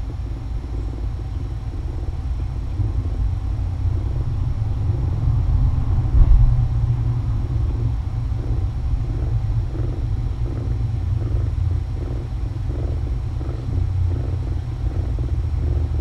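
Cat purring steadily while being stroked, a low fluttering rumble that swells and eases with its breathing.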